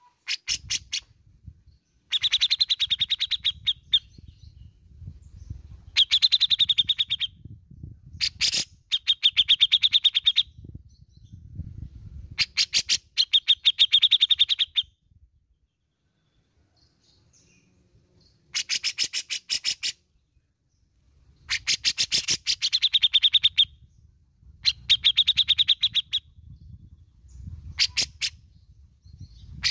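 Grey-cheeked bulbul (cucak jenggot) giving repeated bursts of rapid rattling notes, each a second or two long, with short pauses between. These are the harsh chattering 'besetan' calls prized in Indonesian songbird keeping.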